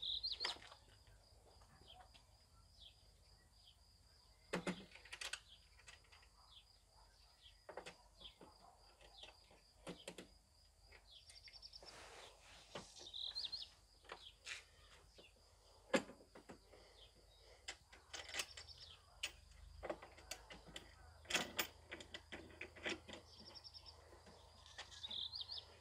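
Quiet scattered clicks and knocks of parts being handled. Small groups of faint bird chirps recur every few seconds over a thin, steady high-pitched tone.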